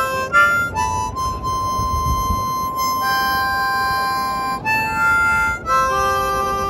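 Harmonica music: slow held notes and chords, each sustained for a second or more before moving to the next.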